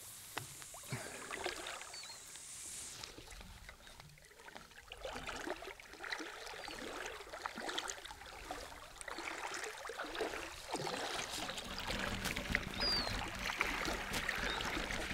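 Shallow water washing and trickling at the shoreline as the tide comes in, with scattered small clicks and ticks.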